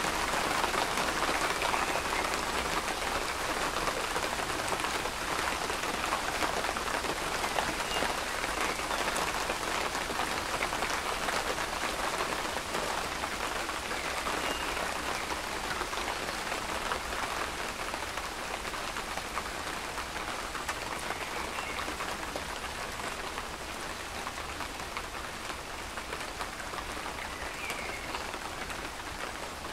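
Steady rain falling, a dense patter of drops hitting a surface, easing off slightly over the stretch.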